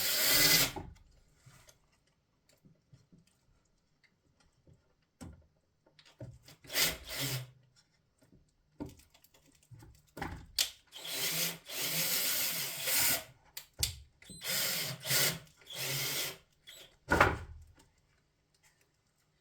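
Electric screwdriver running in several short bursts, driving screws in. The longest run is about two seconds, near the middle.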